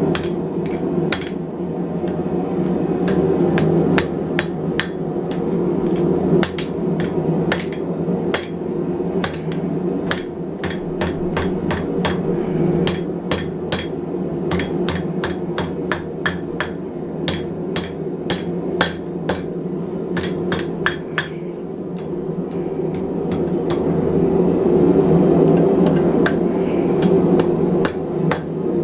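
Hand hammer striking hot steel bar stock on an anvil in runs of quick blows while the bar is shaped and bent for a forged mason jar handle, over the steady running noise of the forge.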